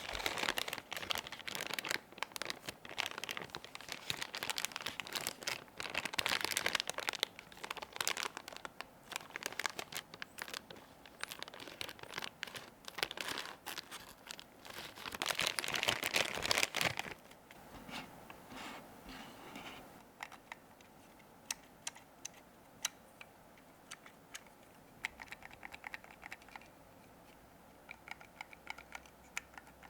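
Plastic wrapping of a McDonald's Happy Meal toy being crinkled and torn open by hand, with dense crinkling for about the first seventeen seconds. After that come quieter, scattered clicks and taps as the small plastic BT21 Koya figurine is handled.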